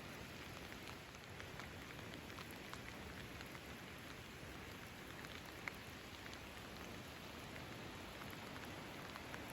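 Steady heavy rain falling, with scattered nearby drops landing as sharp little ticks; one tick a little over halfway through is louder than the rest.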